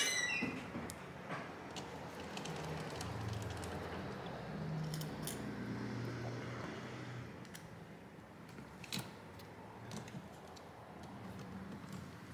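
Small screwdriver turning screws into a graphics card's plastic and metal shroud: scattered faint clicks and ticks of the driver and screws, one sharper click about three-quarters of the way through.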